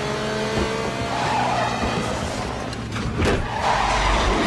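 Chase sound mix of car engines revving and tyres skidding beside a semi truck, with a sharp noise about three seconds in and a film score underneath.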